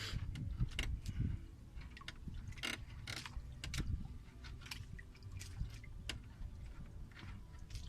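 Fishing reel being cranked to wind in line, its gears giving scattered sharp clicks over a low rumble.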